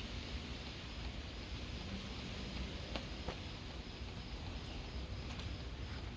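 Steady rain falling, an even hiss, with a couple of sharper drop ticks about halfway through.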